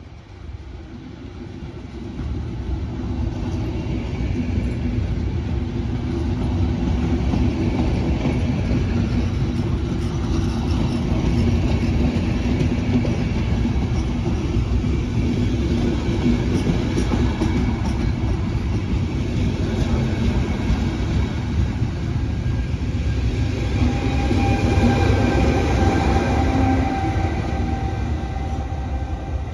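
Regional passenger train with an E464 electric locomotive rolling past at close range: a steady rumble and wheel clatter over the rails. Near the end the locomotive's electric whine comes in with a few steady tones as it passes close.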